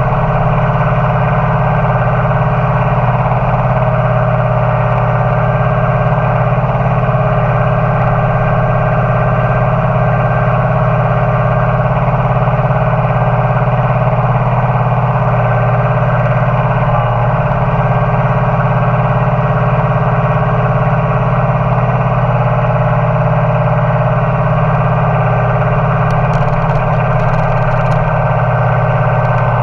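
Compact tractor engine running steadily at constant speed while the tractor drives, a loud unchanging drone.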